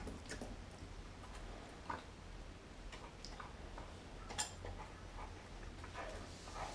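German Shepherd–Chow Chow mix dog eating raw meat from a glass bowl: irregular clicks and ticks of chewing, the sharpest about two seconds in and again about four and a half seconds in.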